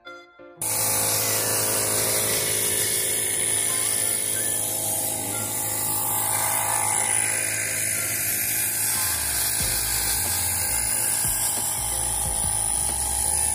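Compressed-air spray gun spraying varnish, a loud steady hiss of air and spray with a low hum underneath, starting abruptly about half a second in.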